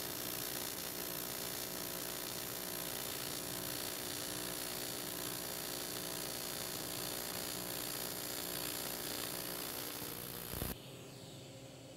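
AC TIG welding arc on aluminum from a Lincoln Electric Precision TIG 275, a steady buzzing hiss while a bead is run with filler rod. Near the end it cuts off suddenly with a short thump as the arc is broken.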